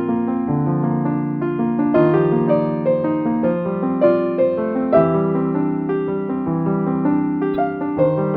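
Background piano music: a slow, gentle piece of soft notes changing about every half second.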